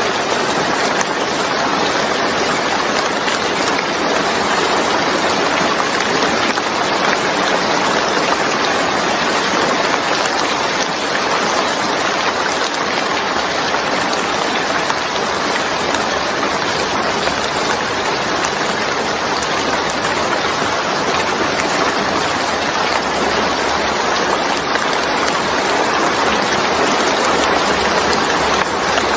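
Steady heavy rainfall, an even rushing hiss of rain falling without a break.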